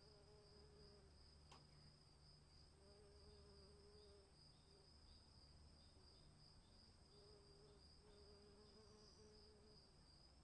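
Near silence: a faint, steady high-pitched tone with a few faint short chirps.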